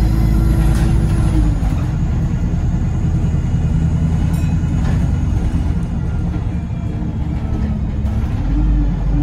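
Bus engine and drivetrain running, heard from inside the passenger saloon: a steady deep rumble with a whine that drops in pitch about a second and a half in and climbs again near the end as the bus eases off and picks up speed.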